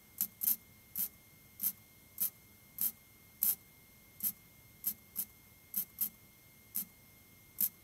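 MIG welder firing in short bursts, about fourteen brief zaps roughly half a second apart, laying spot welds on a classic Mini's steel inner wing repair panel.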